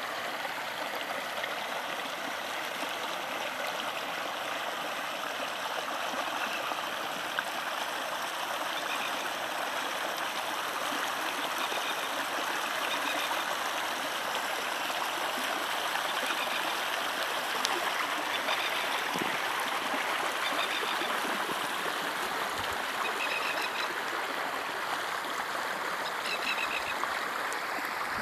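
Shallow floodwater rushing in a sheet over muddy ground: a steady, unbroken wash. Faint, short, high chirping calls come through now and then.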